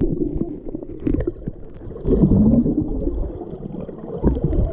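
Muffled underwater pool sound heard from a submerged camera: water churning and gurgling with bubbles as swimmers move close by, swelling louder about two seconds in.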